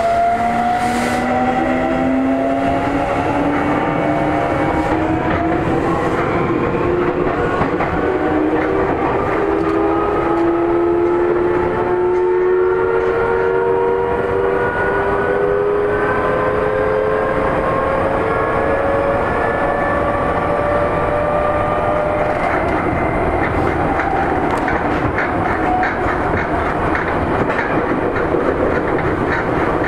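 Seibu 9000 series electric train under way, its VVVF traction motors whining in several tones that rise steadily in pitch as the train accelerates. The whine fades about two-thirds of the way through, leaving wheel and rail running noise with a rapid clickety-clack over rail joints.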